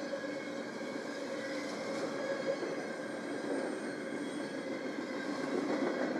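Union Pacific freight train rolling past, a steady noise of cars on the rails.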